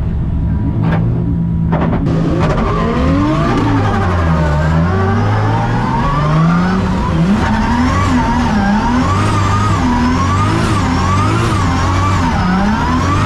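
Drift car engine idling with two knocks, then revving hard, its pitch climbing and falling again and again, about once every second and a half, as the throttle is worked through a drift.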